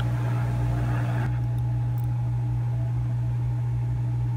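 Hot air rework station blowing on a circuit board to heat a chip for desoldering: a steady low hum with a rush of air over it, the airy hiss thinning about a second in.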